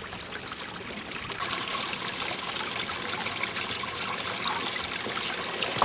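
Water trickling steadily, an even running-water hiss with no other sound standing out.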